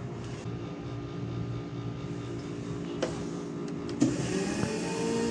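Steady hum of the store's drink machines; about four seconds in, a sharp click as the button of a Curtis coffee dispenser is pressed, then the dispenser running and coffee pouring into a paper cup with a steady hiss.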